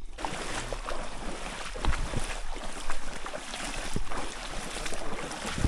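Footsteps crunching along a rough, stony path, irregular knocks over a steady rushing noise.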